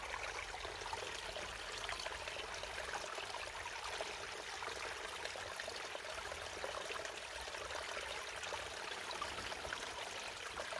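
Shallow woodland stream flowing and trickling steadily over flat stones.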